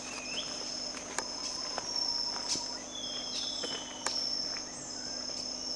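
Tropical rainforest insects keep up a steady high-pitched drone, with short whistled bird notes gliding up and down in the middle and several sharp clicks scattered through it.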